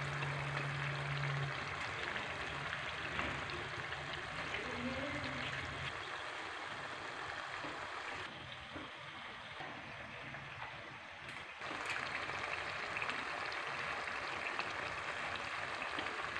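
Chicken karahi sizzling in hot oil and tomato gravy in a wok, an even crackling hiss that dips a little about halfway through.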